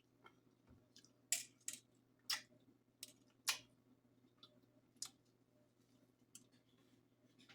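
Wet eating sounds close to the microphone: a scattered run of short clicks and smacks from chewing and handling buttery seafood, the loudest in the first few seconds.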